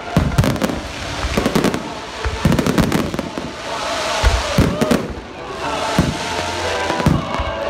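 Aerial fireworks display: a rapid series of shell bursts going off one after another, with a denser crackle of bursting stars about halfway through.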